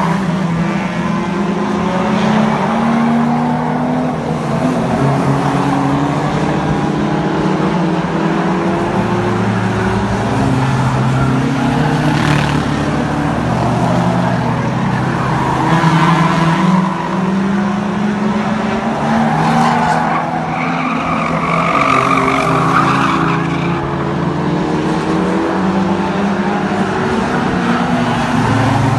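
Several small race cars' engines running on an oval track, overlapping pitches rising and falling as they accelerate and lift through the bends, with a tyre squeal about twenty seconds in.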